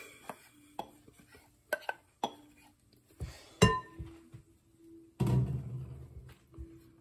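Wooden spoon scraping and knocking against a ceramic bowl and a glass mixing bowl as grated carrot and cucumber are tipped in: scattered clinks and knocks, the sharpest about three and a half seconds in, then about a second of rustling clatter some five seconds in.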